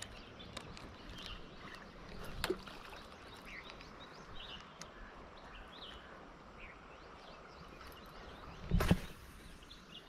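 Faint, steady rush of a shallow river flowing, with scattered short bird chirps. A brief, louder low thump comes near the end.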